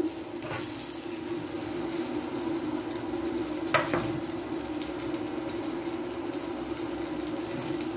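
Metal kitchen tongs placing chilli-sauce chicken onto a tortilla wrap, with one short clack about four seconds in and a fainter one near the start, over a steady low hum with a faint hiss.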